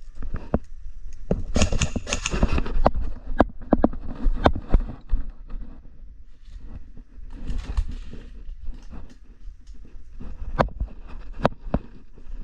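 Irregularly spaced sharp clicks and snaps, a dozen or more, over a steady low rumble of wind and handling noise on the microphone, with two short stretches of rustling hiss.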